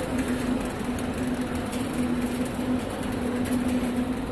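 Tortilla chip production line machinery running: a steady mechanical hum with a held low droning note.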